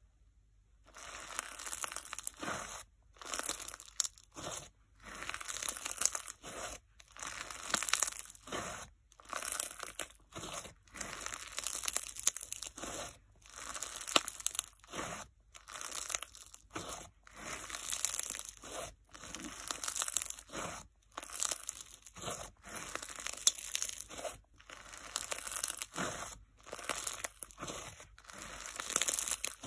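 Fizz slime densely packed with instant snow being squeezed and kneaded by hand, giving a crunchy, fizzing crackle. It comes in squeezes of about a second each, with short silent gaps between, starting about a second in.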